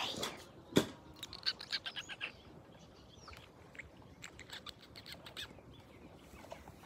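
Australian Cattle Dog puppies giving a quick series of high-pitched squeaks and whimpers, in two runs, with a sharp knock about a second in.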